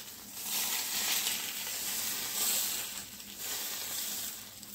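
Hot tadka of mustard seeds and asafoetida in oil sizzling as it is poured from a small steel pan over steamed white dhokla. The steady hiss dies away toward the end.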